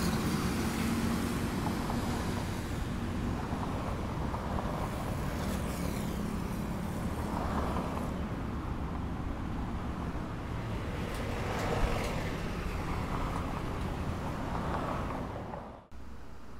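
Steady outdoor road traffic, with vehicles passing now and then. It cuts off suddenly about a second before the end, leaving a quieter steady hiss.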